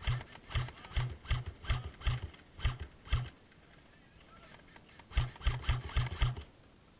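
Running footsteps on a leafy woodland floor, with heavy thumps and a crunch of leaves and twigs at each step, about two to three steps a second. They come in two runs: about eight steps, a pause, then about five more.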